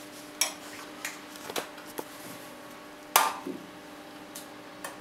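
Scattered small clicks and taps of hands handling wires and crimp connectors inside an oil heater's plastic control housing, the loudest knock a little after three seconds in, over a faint steady hum.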